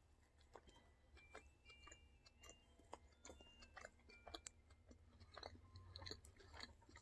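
Faint chewing of a mouthful of burger: soft, scattered mouth clicks and smacks, more of them in the second half.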